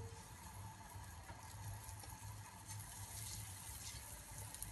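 Butter sizzling faintly as it melts and foams in a hot non-stick pan, over a low steady hum.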